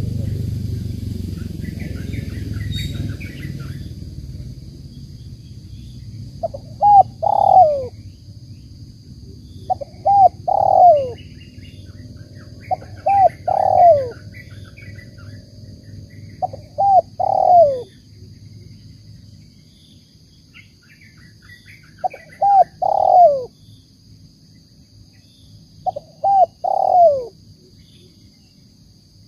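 Spotted dove cooing: six phrases a few seconds apart, each a couple of short notes and then a longer falling coo. It is the call style that tekukur hobbyists call 'banggo bocor'.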